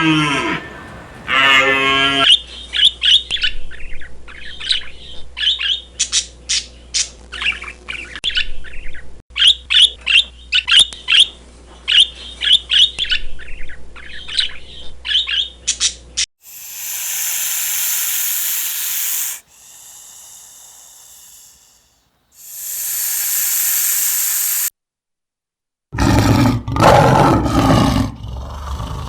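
A run of farm-animal calls, cut one after another. The end of a cow's moo comes first, then about fourteen seconds of rapid, high, repeated chirping from small birds or chicks. A stretch of rushing noise follows, then a brief silence, and near the end a low, loud, rough animal call.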